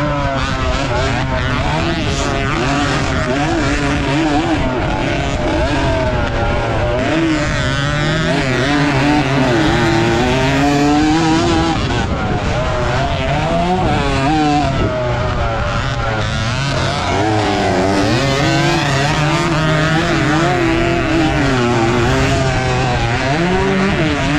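Suzuki AX115's small single-cylinder four-stroke engine racing on a dirt track. The revs climb and drop again and again as the throttle opens and closes and the gears change, over a steady rush of wind and dirt noise.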